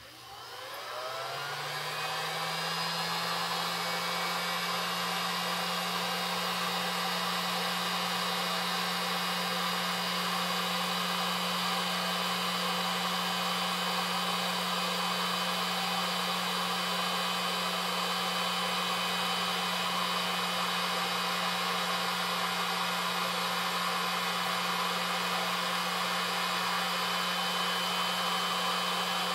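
Electric heat gun switched on: its fan motor hum rises in pitch over about two seconds, then it runs steadily with an even rush of hot air. The heat gun is shrinking heat-shrink tubing to weld T8 sink-tip material onto an intermediate fly line.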